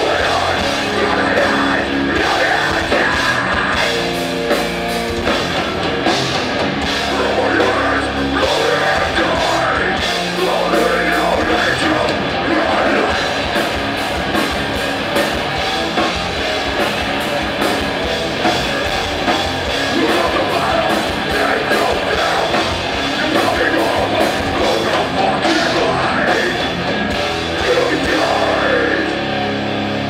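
Rock band playing live with heavy distorted electric guitars and a pounding drum kit, loud and steady throughout.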